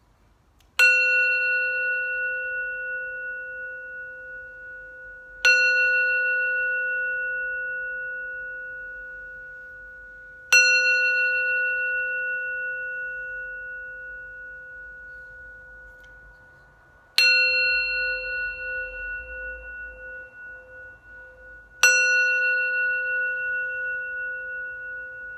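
Tibetan-style singing bowl held on the palm and struck five times, about every five seconds, to cleanse the space. Each strike rings out in a long, slowly fading, wavering tone with a few clear higher overtones above it.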